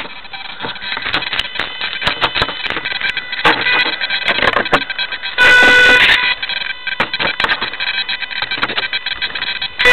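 Clicking and knocking handling noise picked up by a micro RC plane's onboard keyfob camera, over a faint steady electronic whine, with a loud beep-like tone lasting under a second about halfway through.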